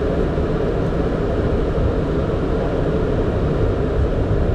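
Steady flight-deck noise of a Boeing 767: engine and airflow noise, even and unchanging.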